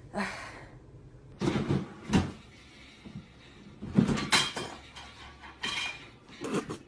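A series of knocks and clattering thumps, about six in all, coming at irregular intervals.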